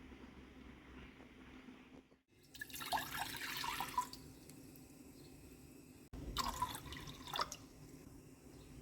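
Water pouring and splashing into a vessel in two short bursts, each about a second and a half long.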